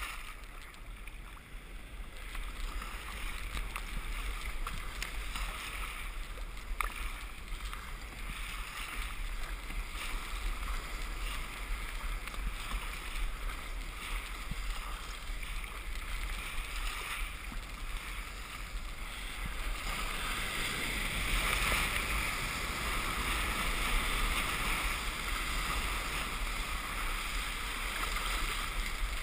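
Surf and broken whitewater rushing around a kayak's hull, growing louder about two-thirds of the way through as the kayak rides into the foam, over a low steady rumble. A single sharp tap about seven seconds in.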